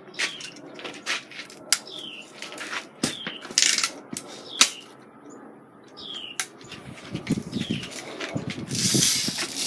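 Sharp clicks and snaps from a Daisy Red Ryder lever-action BB gun being cocked and fired, the loudest snap about halfway through. A bird gives a short falling chirp every second or two in the background.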